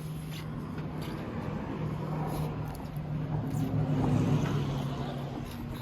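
A vehicle engine running steadily with a low hum, getting louder and a little higher in pitch about halfway through, with a few faint clicks.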